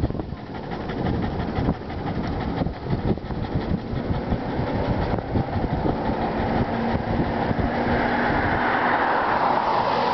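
Bicycle riding over a paved street: the wire front basket and frame rattling and clattering over the bumps, with tyre rumble and wind buffeting the microphone. A rushing noise swells over the last few seconds.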